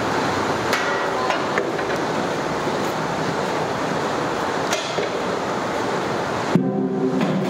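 A long metal paddle knocks and scrapes against the metal rim of a large biryani cooking pot while rice is stirred: several sharp metallic knocks with a brief ringing, over a steady rushing noise. Near the end the rushing drops away abruptly and a low humming tone takes over.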